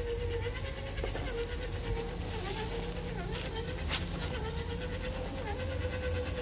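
Whine of an RC scale crawler's electric motor and geared drivetrain, a steady tone that dips and wavers in pitch several times as the throttle and load change, over a low rumble. There is a single sharp click about four seconds in.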